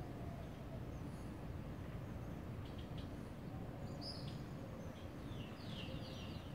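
Outdoor ambience of a steady low rumble with faint birdsong over it: a few short high chirps, then a quick run of repeated high notes near the end.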